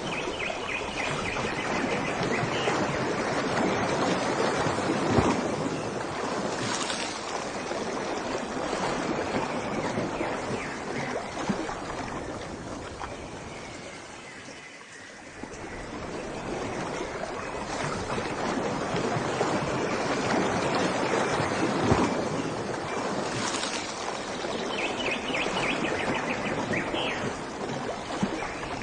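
Ocean waves washing in, swelling and easing with a lull about halfway through, with short runs of high chirping near the start and near the end.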